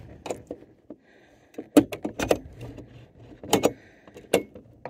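Sharp metallic clicks and knocks, several in quick succession with the loudest about two and three and a half seconds in, from fitting a replacement crank operator into a truck camper escape hatch's aluminium vent frame.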